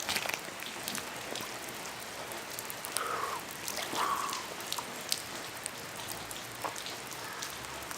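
Steady rain falling, with scattered raindrops tapping close to the microphone.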